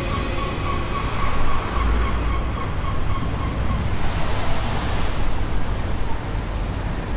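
Steady rushing noise with a deep rumble underneath; a faint high tone fades out about three seconds in.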